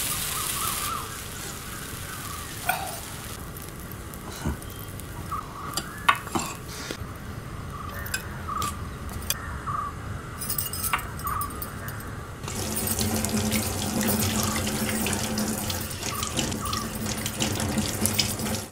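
Kitchen sounds: a short hiss as batter is spread on a hot iron griddle, then scattered clinks of utensils. Past the middle, a tap starts running steadily into a sink.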